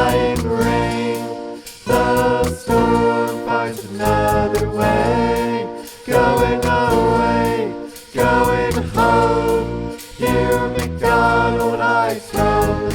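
Electronic music with layered, choir-like sung vocals over a low bass, in phrases that restart about every two seconds.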